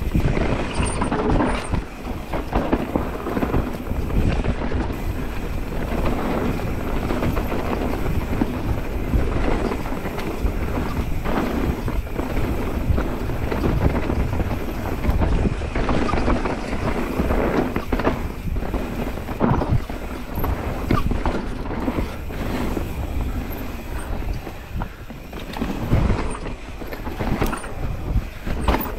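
Mountain bike ridden fast down a rough dirt trail: steady tyre rumble with a constant clatter of knocks and rattles as the bike hits bumps, and wind rushing over the camera microphone.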